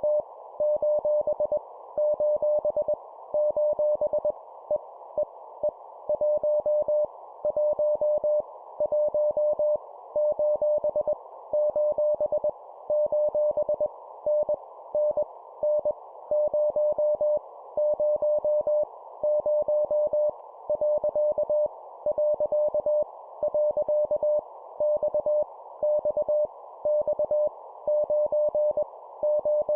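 Morse code (CW) sent at 20 words per minute: a single-pitch beep keyed on and off in dots and dashes, spelling random letters, numbers and punctuation, each group repeated three times. A steady hiss sits behind the tone and carries on through the gaps.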